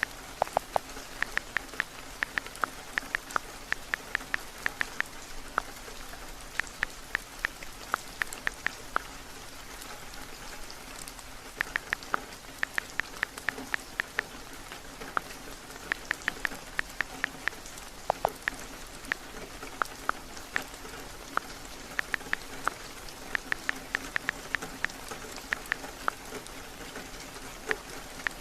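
Heavy steady rain, with runs of quick light taps in bursts of a few seconds and short pauses between them: typing on a phone's touchscreen keyboard.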